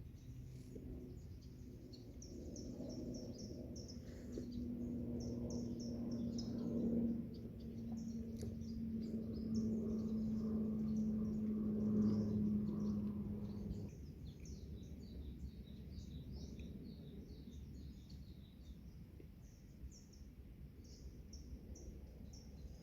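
Forest ambience: small birds chirping and twittering with quick, high calls. Under them a low steady drone builds through the first half and cuts off suddenly about fourteen seconds in.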